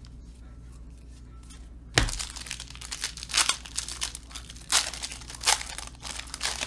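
Foil wrapper of a football trading-card pack being torn open and crinkled. After a quiet start there is a sharp rip about two seconds in, then several more rips and crackles as the foil is pulled apart.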